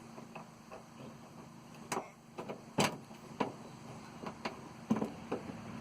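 Scattered sharp clicks and knocks of a bolt and the door handle's metal parts against the inside of a car door as the bolt is fed in and started by hand, the loudest about two and three seconds in.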